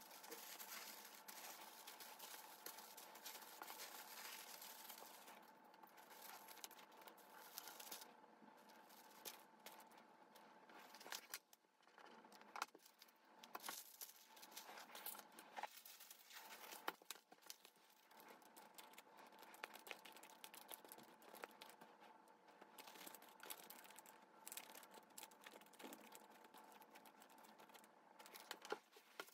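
Faint rustling and crinkling of thin wrapping paper being folded around a phone case, with scattered small taps and clicks from handling.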